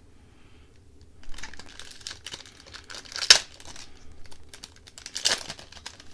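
Plastic wrapper of a hockey card pack being crinkled and torn open, with two sharp rips, one about three seconds in and one about five seconds in.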